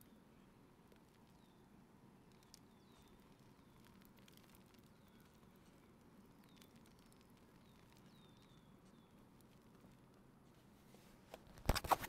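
Low background with faint, short high chirps, then near the end a short burst of loud knocks and rustling as a Sanitaire upright vacuum's cloth bag is shaken out over a cardboard box and brushes against the microphone.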